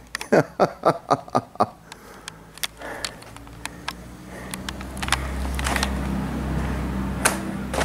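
Quick footsteps and camera handling noise, a run of short crunching clicks over the first couple of seconds, then scattered knocks over a low steady rumble that swells from about halfway through.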